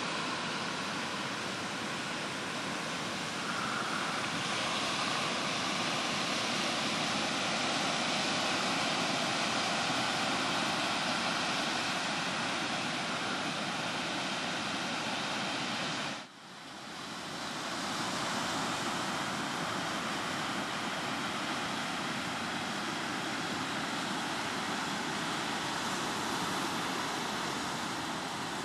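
Atlantic surf breaking on a sandy beach: a steady rush of waves and foam. About halfway through the sound drops out briefly and swells back.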